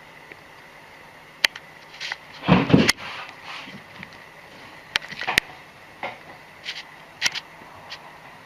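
A cat sliding off a ledge and landing with a short thump and scuffle about two and a half seconds in, followed by scattered light knocks and taps as it moves about.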